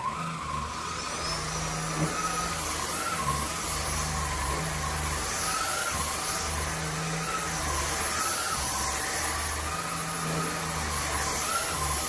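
BuTure VAC 450 W cordless stick vacuum switched on and running: a steady rushing of air with a thin high whine, and a mid-pitched tone that wavers up and down.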